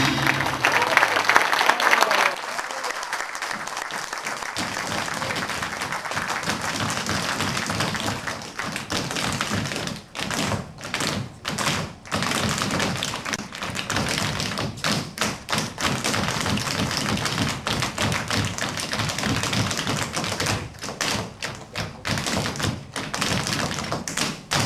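Tap-dance footwork: several dancers' hard-soled shoes tapping and stamping on a wooden stage in a quick, busy rhythm.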